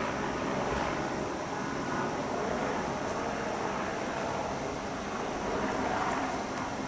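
Helicopters hovering at a distance: a steady mechanical drone that swells and eases a little.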